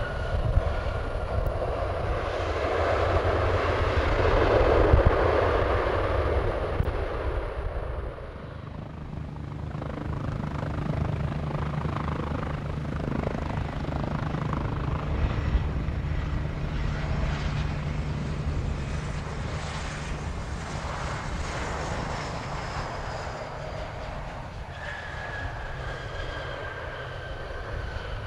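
Jet airliner engines passing: a broad rumble swells to its loudest about five seconds in and drops away, then a steadier low drone carries on, with a thin high engine whine slowly falling in pitch near the end.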